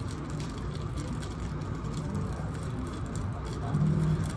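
Steady low rumble of background room noise, with faint voices near the end.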